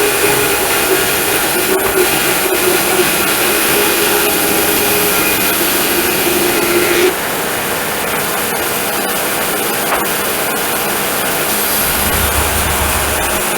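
Homemade sawmill running loud and steady while milling pine. About halfway through, a steady tone in the noise stops and the level drops a little, as the saw's load changes.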